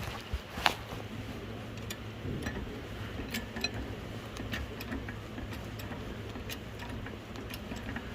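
Irregular light metallic clicks and ticks from jacking gear being handled under a car, over a steady low hum.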